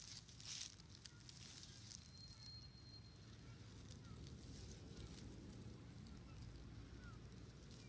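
Faint outdoor ambience: a low steady rumble, a brief rustle about half a second in, and a thin high whistle-like tone lasting about a second near two seconds in.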